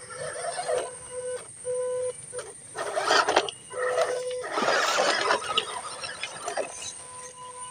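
RC crawler's small electric motor whining in short bursts of throttle, with the crunching and scraping of its tyres and chassis over broken bricks and rubble; the loudest scrapes come about three and five seconds in.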